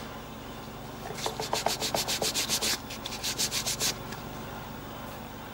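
Quick back-and-forth rubbing on the engraved metal coin, about nine strokes a second, in two runs: one starting about a second in, the other just after a short pause near three seconds. It is the engraving being polished or wiped back to bring out the contrast of the cuts.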